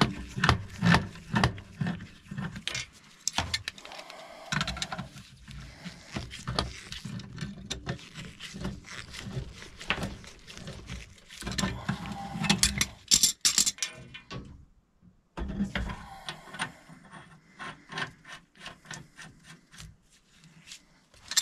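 Groove-joint pliers clicking, scraping and knocking on threaded gas pipe fittings as the joints at the water heater's gas valve are turned and tightened, in irregular clicks with a short pause about fifteen seconds in.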